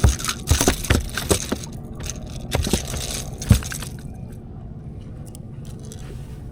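Irregular knocks and thumps of a just-landed smallmouth bass being handled in a fishing boat, several in the first few seconds with the loudest near the middle, then only a low steady background.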